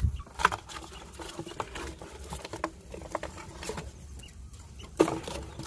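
Dry straw bedding and a cardboard nest box rustling, with scattered small scratches and taps, and a sharper knock about five seconds in.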